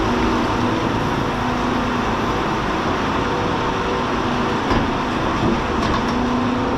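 Machinery running steadily with a constant low hum.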